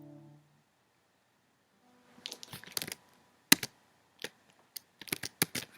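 An acoustic guitar's last chord dies away in the first half-second. After a short pause comes an irregular run of light clicks and taps, the sharpest about three and a half seconds in.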